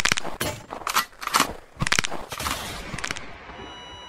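Outro sound effect: a rapid series of sharp bangs or crashes, two or three a second, then a high ringing tone that starts near the end and holds steady.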